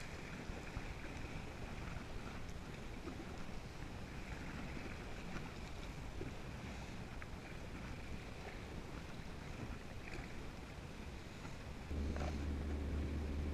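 Kayak paddle blades dipping and splashing at intervals, with water slapping against the plastic hull and wind on the microphone. About a second and a half before the end the sound cuts to a louder, steady low rumble.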